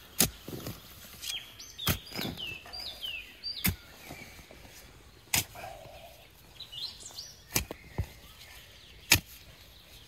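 Scattered sharp knocks and clacks, about seven of them, the loudest near the end, as soil is dug with a shovel and rusty metal finds are handled in the dirt. Small birds chirp short falling notes in the background.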